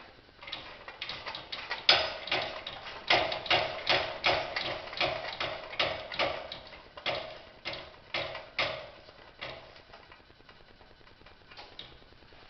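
Ratchet wrench clicking as a spark plug is unscrewed from the GT5000 engine's aluminum cylinder head: sharp clicks, a few a second, that stop a little before the end.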